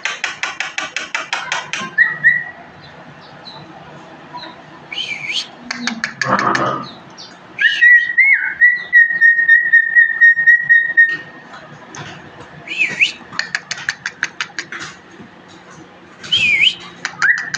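A caged songbird whistling and chattering: fast rattling trills, a few swooping whistle notes, and one long steady whistle held for about three seconds in the middle.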